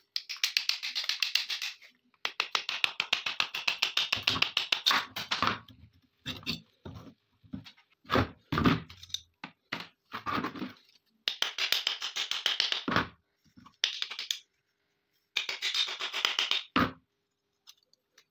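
Rusty steel pistol parts scraping and rattling against each other in several long spells, with scattered knocks and clunks in between, as the slide and frame are worked apart by hand.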